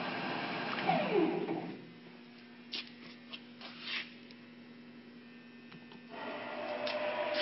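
2008 Clausing CNC lathe spindle running, then switched off at the spindle forward/reverse lever: its pitch falls as it spins down over about a second. A steady low hum with a few sharp clicks follows, and the machine's running noise comes back on about six seconds in.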